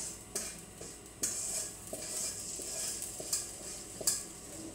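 Chicken and curry paste sizzling in a wok while a spatula stirs and scrapes through it, with a few sharp knocks of the spatula against the wok.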